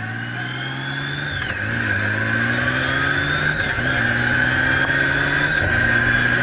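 Honda Gold Wing's flat-six engine accelerating through the gears: the engine note rises, then drops with an upshift about a second and a half in, again about halfway through and once more near the end. A steady high whine runs underneath, and the overall sound grows louder as speed builds.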